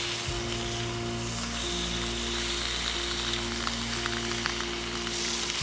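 Trout fillets frying in butter in a small pan, sizzling steadily, with a few light clicks of the spatula against the pan midway. Background music plays underneath.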